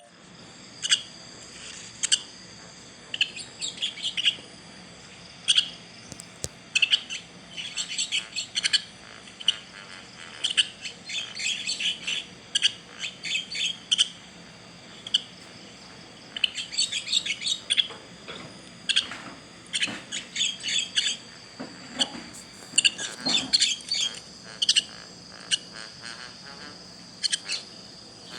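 Baby bird chirping: short, high chirps again and again, in quick irregular runs.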